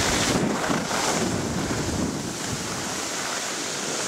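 Wind buffeting the camera's microphone while skiing downhill: a steady rushing noise that eases a little about two seconds in.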